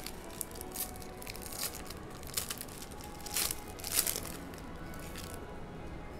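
Foil trading-card pack wrapper crinkling and tearing open: an irregular run of crackles, loudest about three and a half and four seconds in.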